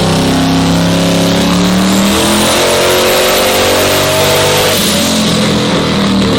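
Turbocharged engine of a 1,000-horsepower Ford Ranger running loud and hard at high revs under load, holding a fairly steady note over a strong rushing hiss.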